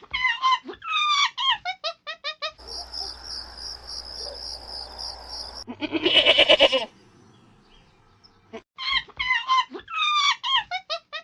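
Animal calls: a quick series of short, falling chirps that speed up, then a loud pulsing call about six seconds in, and the chirp series again near the end.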